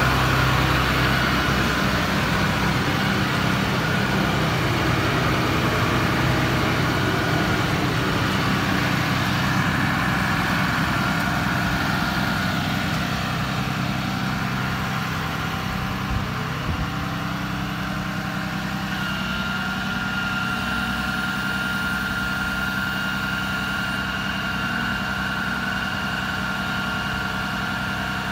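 Ram 5500's 6.7-litre Cummins turbo-diesel straight-six idling steadily, growing slightly fainter over time. A steady high whine joins about two-thirds of the way through.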